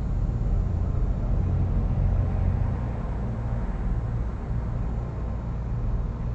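Steady low rumbling hum of background noise, with no distinct events.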